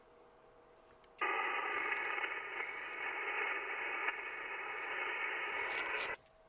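Amateur HF transceiver's speaker playing single-sideband receive audio: band hiss and static with a few faint steady tones in it, no voice. It comes on abruptly about a second in and cuts off about five seconds later.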